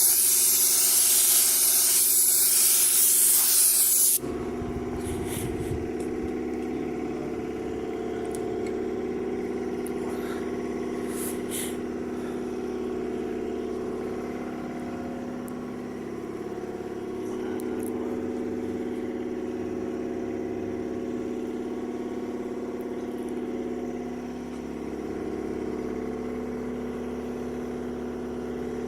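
Paint spray gun hissing for about four seconds, then cutting off suddenly, leaving an air compressor running with a steady hum.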